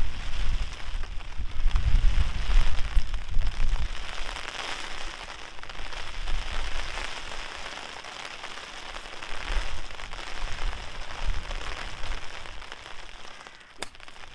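Steady rain with gusts of wind buffeting the microphone, heaviest in the first few seconds. Near the end a golf club strikes the ball with a single sharp click.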